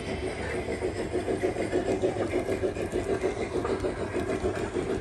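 G-scale model steam locomotive chuffing in a steady rhythm of about four beats a second, growing louder about a second in.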